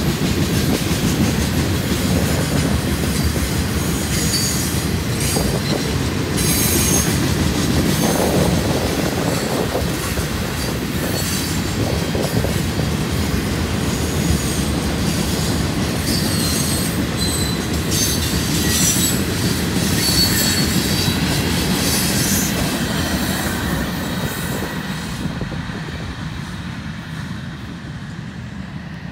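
Florida East Coast freight train rolling past on a curve: a steady rumble of wheels on rail, broken by repeated high-pitched wheel squeal. Fades toward the end as the train moves away.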